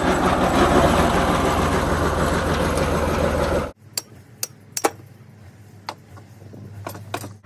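Grass-cutting machine's engine running loudly and steadily. It cuts off abruptly about halfway through, leaving a faint low hum with about six sharp knocks or clicks spaced irregularly.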